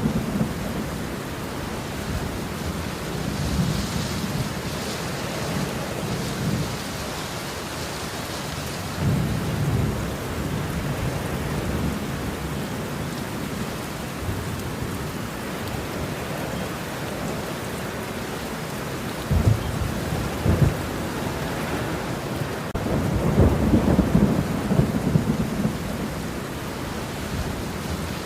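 Thunderstorm: steady rain hiss with thunder rumbling several times, and two sharper cracks of thunder about two-thirds of the way through.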